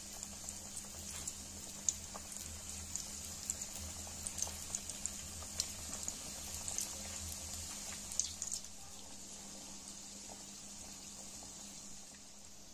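Chicken and potato cutlets deep-frying in hot oil: a steady sizzle with frequent small pops and crackles. It is busiest for the first eight seconds or so, then settles to a calmer sizzle.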